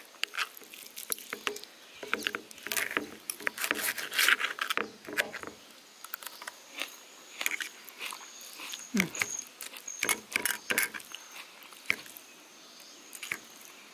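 A fork clicking and scraping against a plate of food in short, irregular clicks.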